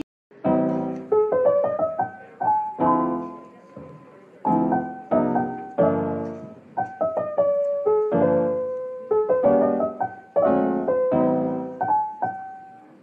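Background piano music: a slow run of single notes and chords, each struck and fading away.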